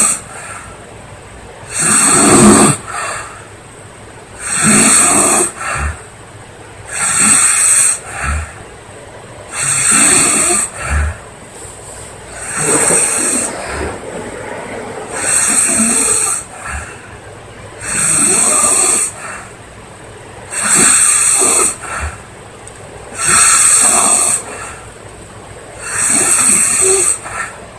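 A girl snoring loudly, a rasping snore on each breath about every two and a half seconds, with quieter breathing between snores.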